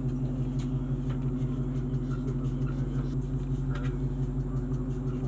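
Steady low mechanical hum with a slight regular pulse, like an idling engine or motor, with a few faint clicks.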